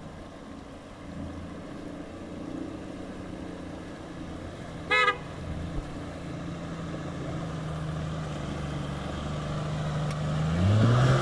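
A Toyota Land Cruiser 80-series engine pulling steadily as the 4x4 wades through a shallow river, growing louder as it comes closer, with water splashing around the wheels. A short car-horn toot sounds about five seconds in. Near the end the engine revs up as it climbs out onto the rocky bank.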